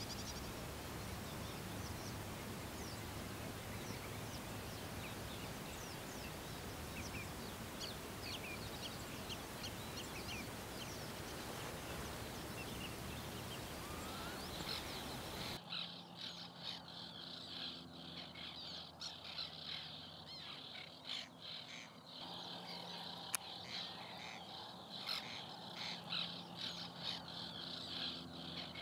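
Steady outdoor hiss with faint, scattered bird chirps. About halfway through it switches abruptly to many harsh, repeated bird calls: the alarm cries of a nesting colony.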